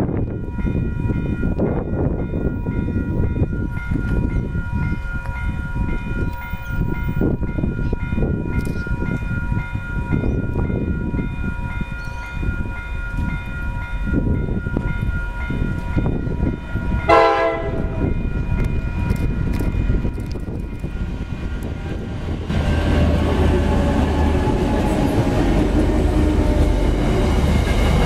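Diesel-hauled freight train approaching with a steady rumble and a thin high whine, then one short horn blast about two-thirds of the way in. The last few seconds grow louder as the locomotive and its wagons pass close by.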